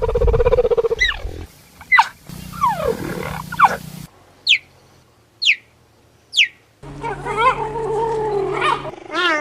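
Wild cat calls in several short cut-together clips: a held call at the start, three quick high chirps that fall in pitch about a second apart in the middle, and a longer wavering call near the end.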